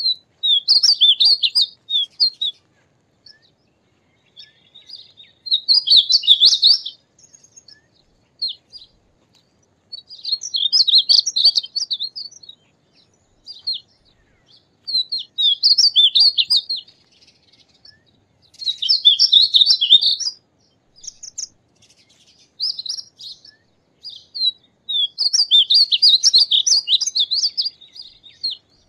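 Male painted bunting singing: a rapid, high, warbling phrase of jumbled notes about two seconds long, repeated about six times at intervals of four to five seconds, with a few short single notes in between.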